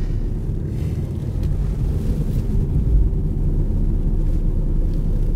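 Road and engine noise inside a moving car's cabin: a steady low rumble that swells briefly about three seconds in.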